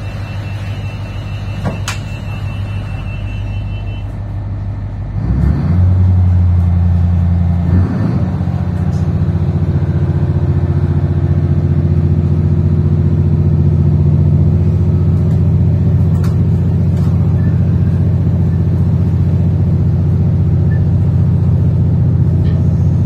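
Diesel engine of a 3000-class diesel-electric railcar heard from inside the car, running steadily with a high steady beep over it for the first few seconds. About five seconds in the engine note rises and gets louder, then holds as the railcar pulls away from the platform and gathers speed.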